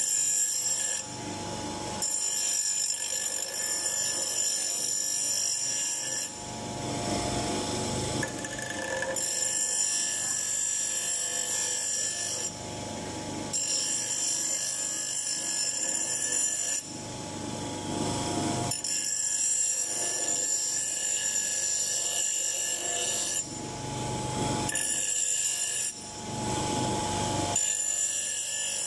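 Bench grinder's wheel grinding an iron hammer head: a rasping hiss over the machine's steady high whine. The grinding breaks off briefly several times.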